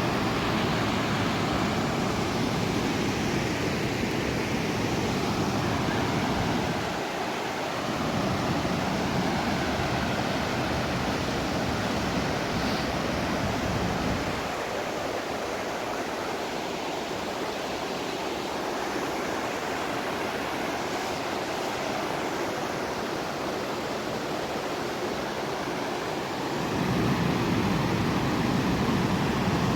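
Steady rush of a mountain river or cascade, with the deeper part of the sound falling away for stretches and coming back near the end.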